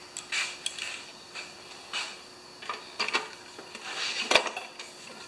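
Hand pop-rivet gun being squeezed several times, with metallic clicks and scrapes of the tool's jaws, then a sharp snap about four seconds in as the rivet's pin breaks off. The rivet is being set to hold a new rewind assembly on a Briggs & Stratton Quantum engine.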